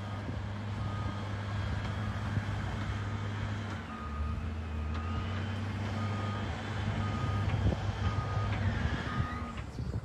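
Diesel engine of a heavy earthmoving machine running steadily, with its reversing alarm beeping at an even pace, about once every three-quarters of a second, while it backs up.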